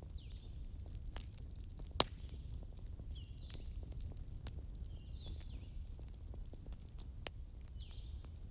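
Fireplace fire with a steady low rumble and scattered sharp crackles and pops of burning wood. The loudest pop comes about two seconds in and another near the seven-second mark.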